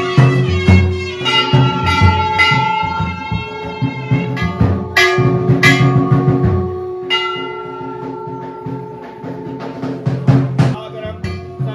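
Music with a drum beat and bell-like strikes over long held tones.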